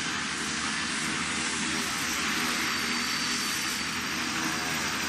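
Helicopter running steadily, its engine and rotor making a constant, unchanging noise.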